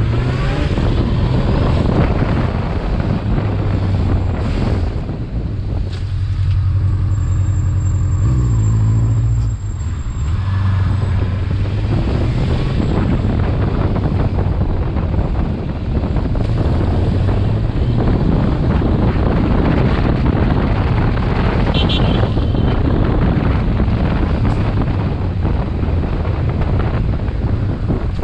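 Honda CBF motorcycle engine running under way, its note stepping up and down through the gears, with wind noise buffeting the microphone. The level dips briefly about nine or ten seconds in as the engine is backed off.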